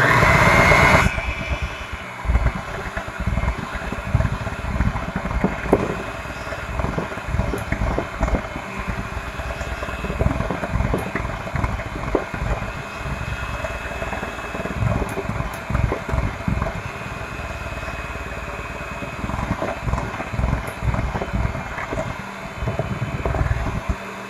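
Electric hand mixer running steadily as its beaters churn thick cake batter in a glass bowl. It is louder for about the first second, with irregular knocks of the beaters against the bowl throughout.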